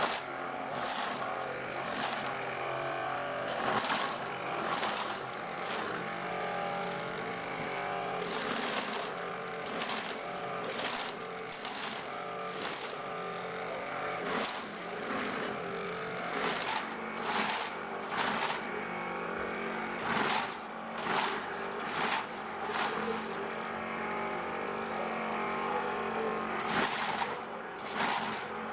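Homemade corn sheller driven by a salvaged Sanyo water-pump motor, running with a steady hum while its rubber tyre-strip beaters strip kernels off maize cobs, giving irregular bursts of kernels clattering.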